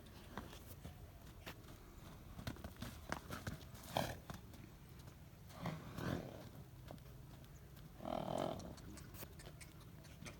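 Farm animals close by: scattered sharp knocks and clicks like hooves shifting on hard ground, with short animal calls or snorts about four and six seconds in and a longer call about eight seconds in.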